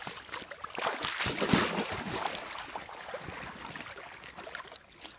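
Water sloshing and splashing irregularly, with small knocks, loudest about a second and a half in and fading near the end.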